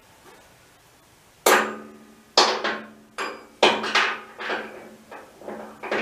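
Repeated metal-on-metal blows, something being knocked into place on a motorcycle lift. About ten sharp strikes, roughly two a second, start about one and a half seconds in, and each leaves a ringing tone; the first blows are the loudest.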